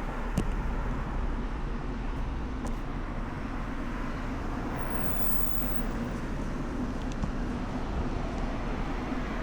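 Steady wind and road rumble while riding a bicycle, with a short high-pitched squeal about five seconds in.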